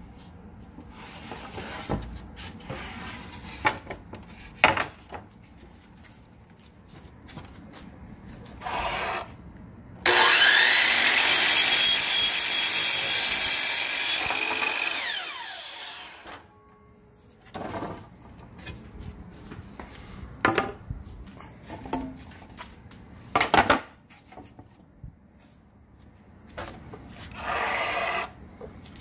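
Power miter saw starting up with a rising whine about ten seconds in and running for about four seconds as it cuts a cedar board, then winding down. Scattered knocks and clatter of the boards being handled on the saw come before and after.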